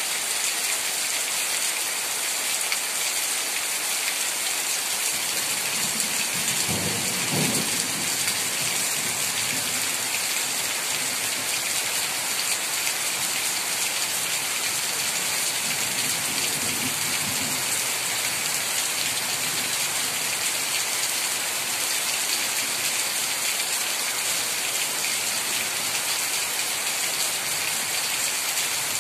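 Steady rain falling on garden foliage and surfaces, an even, unbroken hiss of drops. A brief low rumble rises through it about seven seconds in, with a fainter one near the middle.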